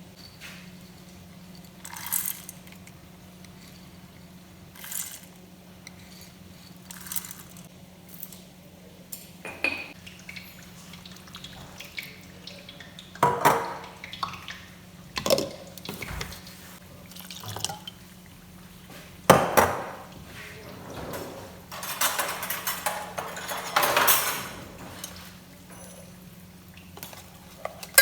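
Kitchen work: dishes, glass and utensils clink and are set down every few seconds, with a few seconds of liquid being poured or run about three quarters of the way through, over a steady low hum.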